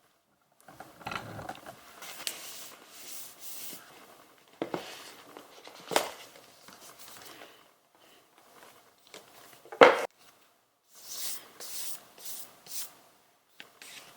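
Irregular handling noises indoors: rustling and rubbing with a few sharp knocks, the loudest knock about ten seconds in.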